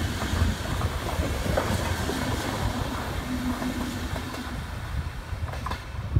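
Intercity passenger coaches rolling past on the track: a steady rumble of wheels on rail with scattered clicks, easing a little as the last coach goes by near the end.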